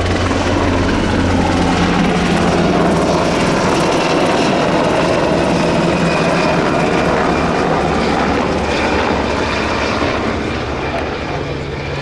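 Sikorsky VH-60N WhiteHawk helicopter flying close by: loud, steady rotor and twin-turboshaft engine noise that eases off slightly near the end.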